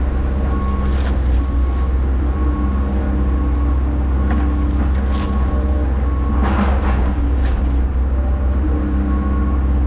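Hyundai HX140AL excavator's diesel engine running steadily under working load, with a steady hydraulic whine over its low rumble. A short noisy burst comes about six and a half seconds in, with a few light clicks along the way.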